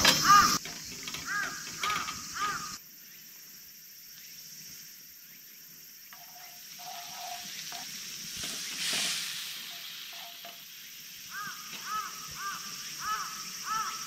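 Butter melting and then milk sizzling and bubbling in a steel frying pan over a wood fire, stirred with a wooden spatula: the start of a béchamel sauce. A repeated arching call sounds over it at the start and again near the end.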